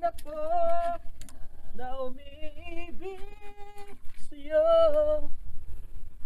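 A person singing unaccompanied: four phrases of long held, gently wavering notes, the last one ending about a second before the end.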